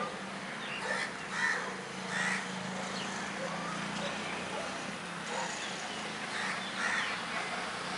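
Crows cawing, several harsh calls in a bunch about a second in and a couple more near the end, over a steady low hum.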